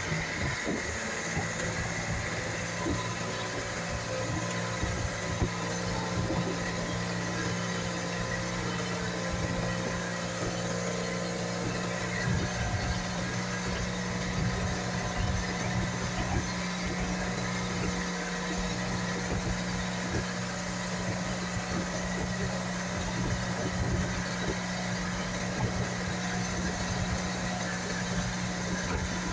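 Inboard engine of a motorised outrigger boat (bangka) running steadily under way, a constant low drone with a steady pitch.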